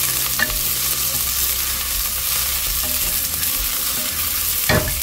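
Diced onions sizzling in hot olive oil in a stovetop pot, stirred with a wooden spoon, with a steady hiss and one sharp knock near the end.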